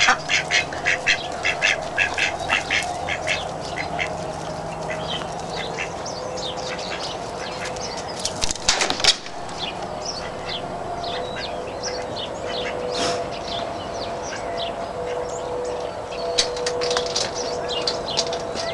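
Domestic ducks quacking in a quick run of short quacks for the first few seconds, followed by scattered high chirps of small birds over a steady distant tone, with a brief loud rustle about nine seconds in.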